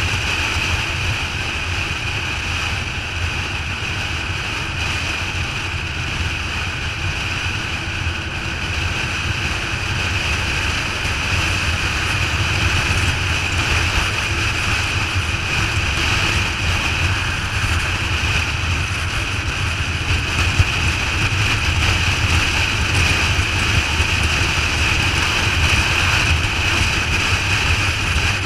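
Steady wind rush over the microphone of a motorcycle at highway speed, over a constant low rumble of the bike and road.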